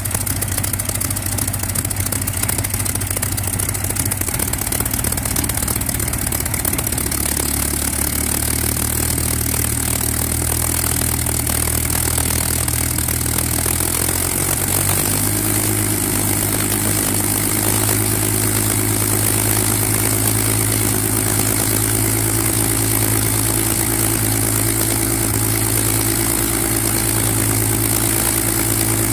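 Rolls-Royce Griffon V12 aero engine running on the ground at low speed, the propeller turning. The engine note dips slightly about a quarter of the way in, then picks up to a faster, steady run about halfway through.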